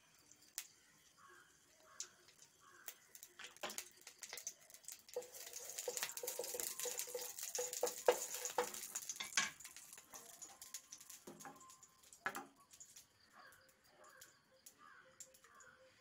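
Oil sizzling in a hot nonstick pan as it is spread to grease the pan for dosa, with the clicks and scrapes of a steel spoon against the pan. The sizzle swells about five seconds in and fades by about ten seconds.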